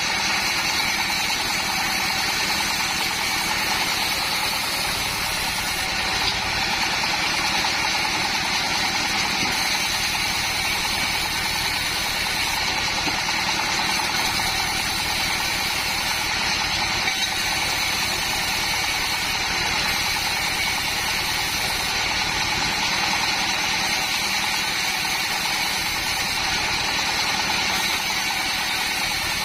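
Home-built sawmill's board saw running steadily, a constant pitched whine over the machine's drone with no change in load.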